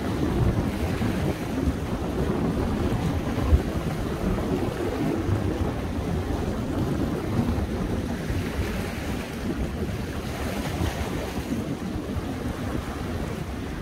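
Wind buffeting the microphone over sea waves washing against a rocky shore, with a single short knock about three and a half seconds in.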